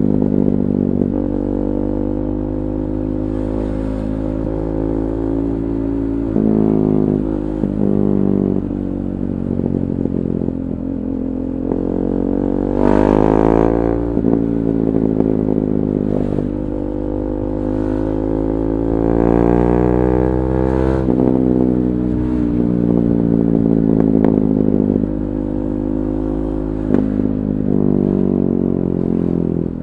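KTM 390 Duke's single-cylinder engine running through an Akrapovic Moto2 slip-on exhaust with the catalytic converter removed. Its pitch rises and falls; twice it climbs for a couple of seconds and then drops sharply, as under acceleration with upshifts.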